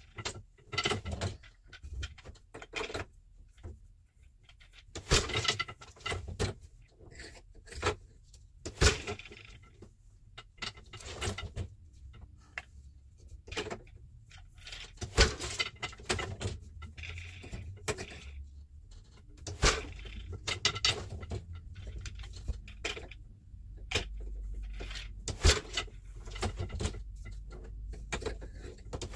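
Weaving on an 8-shaft loom: boat shuttles passed through the shed and the beater knocking the weft into place, heard as irregular knocks and clacks, a handful of them much louder than the rest.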